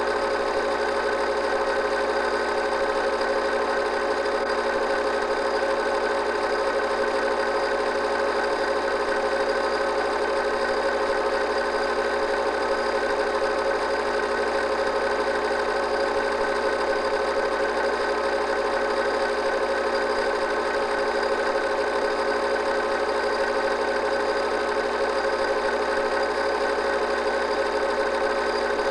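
Home-movie film projector running: a steady mechanical whirr and rapid clatter that does not change.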